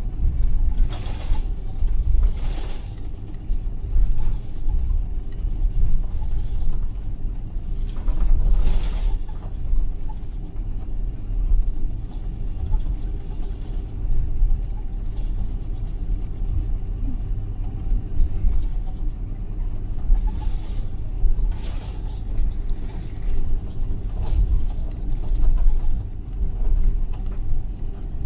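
Airbus A330 cabin noise while taxiing: a steady low rumble from the rolling aircraft, with brief creaks and rattles from the cabin several times.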